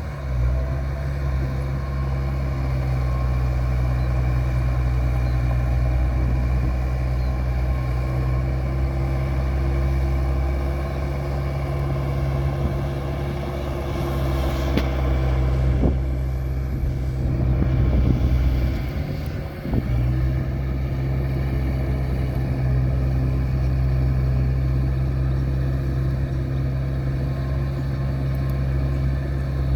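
A heavy vehicle engine running steadily with a deep, even drone; it dips briefly about two-thirds of the way through, then settles back.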